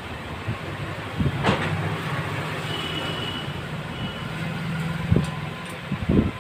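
A few sharp metal clinks and knocks from hand tools and loose parts on the opened engine of a Hero Honda Splendor NXG, the last two near the end, over a steady low hum.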